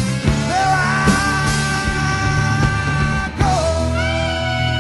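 Rock music, an instrumental passage: a lead instrument holds long notes that bend in pitch near the start and again about three and a half seconds in, over a steady low accompaniment.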